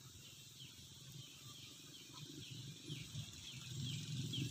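Faint open-air ambience: a bird repeating short, high, falling chirps, coming more often toward the end, over a steady high hiss. A low rumble grows louder near the end.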